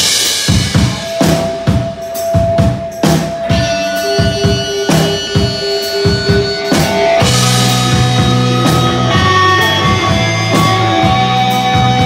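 Live rock band playing: drum kit, electric guitars and electric bass. For the first half the drums hit hard and often; from about seven seconds in, held guitar and bass notes ring out over lighter drumming.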